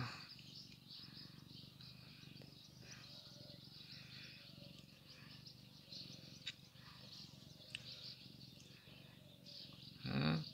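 Faint outdoor ambience with small birds chirping on and off, and a short louder low sound near the end.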